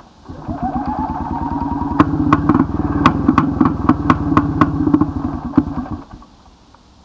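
Tula motorcycle's single-cylinder two-stroke engine being started: it spins up with a rising whine, then runs raggedly with sharp irregular pops for a few seconds before stopping about six seconds in. The throttle cable is broken, so the engine cannot be given gas from the twist grip.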